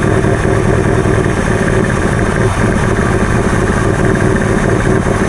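A 1984 Ford LTD Crown Victoria's carbureted 302 V8 idles steadily at about 750 rpm, a bit loud and shaky. The owner puts this down to open holes left where the smog pump and its brackets were removed, and to a vacuum leak.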